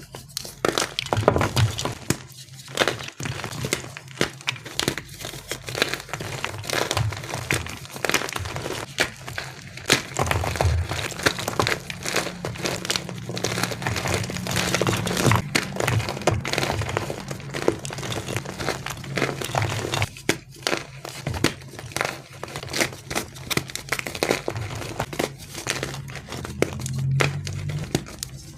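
Blocks of gym chalk being crushed and crumbled, a dense, irregular run of crunches and crackles over a low steady hum.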